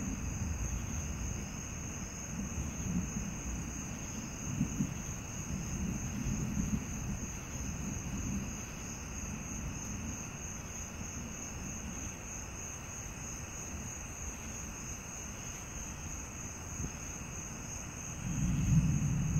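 Distant thunder rumbling low and unbroken, swelling a few times and growing louder near the end, over the steady high trill of night insects.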